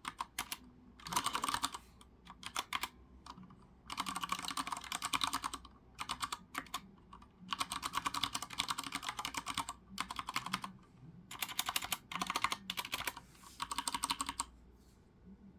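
Typing on a Ducky Shine 3 Yellow Edition mechanical keyboard with brown switches: fast runs of key clicks in bursts of one to two seconds, broken by short pauses.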